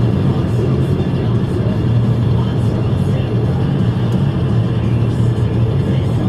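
Steady in-cabin drone of a 2009 Pontiac Vibe with its 1.8-litre four-cylinder engine, cruising along a road: a constant low engine hum mixed with tyre and road noise.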